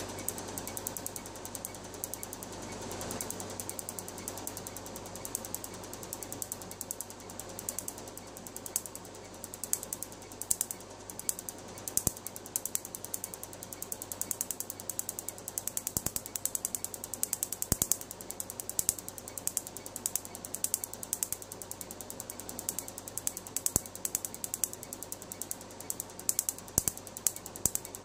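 MedLite C6 Q-switched Nd:YAG laser firing on tattooed skin: a rapid, uneven train of sharp snapping clicks as each pulse shatters the ink. The clicks grow denser and louder after the first several seconds, over a steady low hum.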